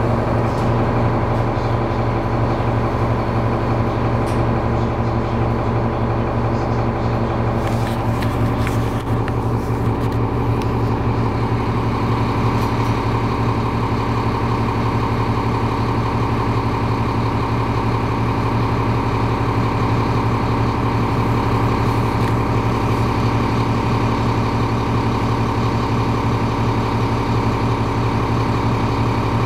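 Inside the cabin of a 2002 New Flyer D40LF transit bus, its Cummins ISC inline-six diesel is running steadily. About eight seconds in its note shifts, then it holds a steady idle while the bus stands still.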